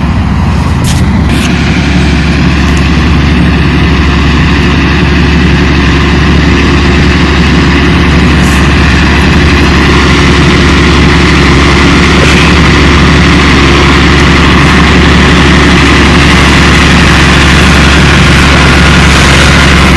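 Tractor engine running steadily at constant revs, a loud, even drone with no change in pitch.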